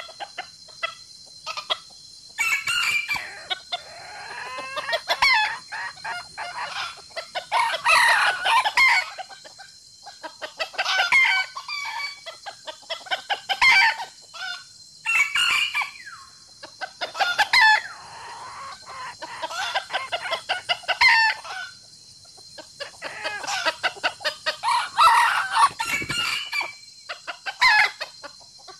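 Chickens clucking in bouts a few seconds apart, with a rooster crowing among them.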